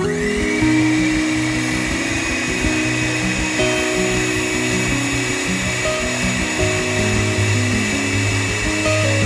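Small electric motor of a miniature DIY toy concrete mixer switching on and running steadily. It gives a high-pitched whine that rises briefly as it spins up, heard over background music.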